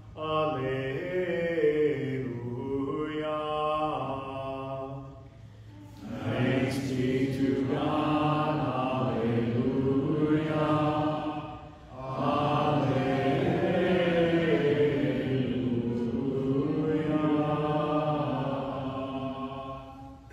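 Voices singing a chant-like hymn at the close of Mass, in long phrases of about six seconds each with short breaths between them about six and twelve seconds in.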